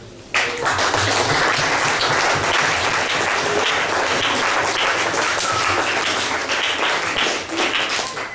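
A room full of people clapping. The applause starts suddenly just after the beginning and keeps up steadily.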